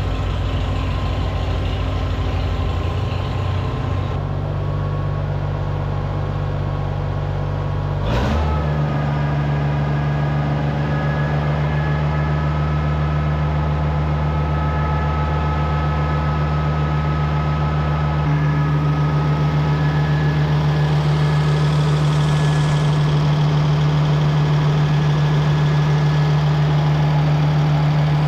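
Oliver 1650 tractor engine running steadily. Its note steps up about four and eight seconds in, with a sharp click at the second change. It steps again, slightly louder, about eighteen seconds in.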